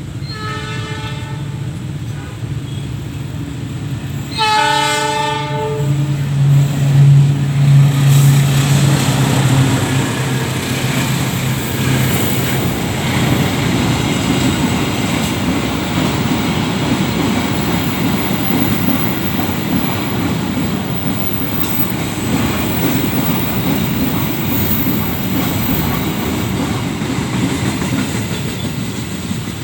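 Kamandaka passenger train passing: the locomotive sounds its horn twice, the second blast longer and louder, and then its diesel engine goes by loudly. The carriages follow with a steady rumble and clatter of wheels on the rails.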